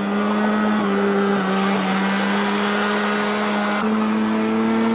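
Skima 4 hovercraft's engine and ducted fan running at a steady speed: a constant engine note over a rush of air, with a slight shift in tone a little under four seconds in.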